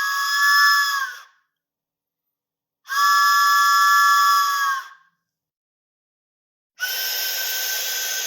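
Cartoon train whistle sound effect: a chord of several whistle tones sounding together, ending about a second in, then a second blast of about two seconds. Near the end a hissing sound with a single steady tone starts.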